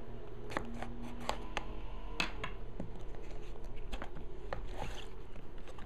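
Hobby knife blade scraping and cutting through the tape seal on a cardboard box, then the box lid being lifted open, giving a string of sharp clicks and scratches over a steady low hum.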